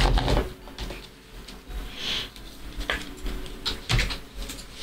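Trading cards being handled on a table: a few scattered rustles, slides and light taps.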